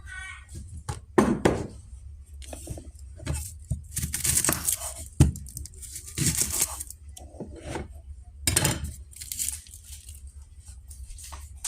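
Kitchen handling sounds: irregular crinkling and tearing of a packet, likely the angel hair pasta being opened, with a few sharp clicks and clinks of kitchenware.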